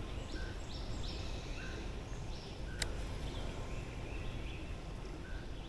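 Steady outdoor background noise with faint birds calling, short notes repeating every second or so, and one sharp click near the middle.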